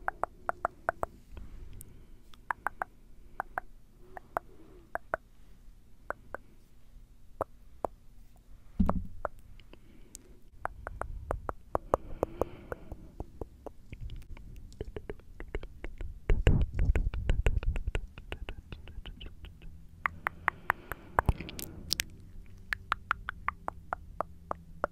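Tongue clicking and wet mouth sounds made right at a microphone: quick runs of sharp clicks, several a second, broken by short pauses and a few softer, lower mouth noises.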